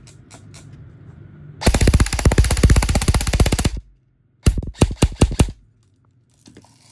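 Delta 022HT airsoft electric rifle (AEG) firing on full auto: a long burst of about two seconds starting near two seconds in, then a short burst of about half a dozen shots about a second later.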